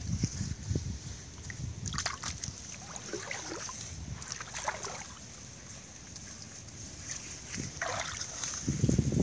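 Muddy water sloshing and splashing as it is pushed about by hand, with a louder splash near the end.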